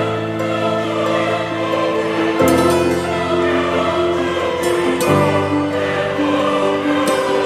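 Background music of sustained choral chords, each held about two and a half seconds before the harmony changes.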